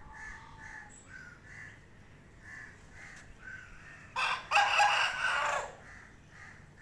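A rooster crows once, about four seconds in: a short, harsh crow of under two seconds, by far the loudest sound. Faint short bird calls repeat in the background.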